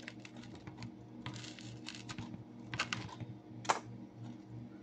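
Hands handling filled bread rolls on a tray: a run of light crackles and clicks, the sharpest about three-quarters of the way through, over a steady low hum.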